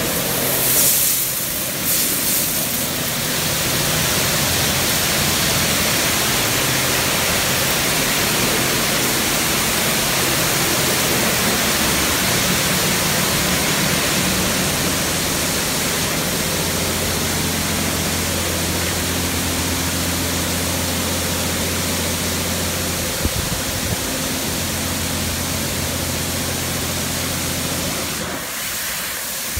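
Oasis XP touchless automatic car wash spraying high-pressure water over a vehicle: a steady hiss of spray with a low hum underneath, easing slightly near the end.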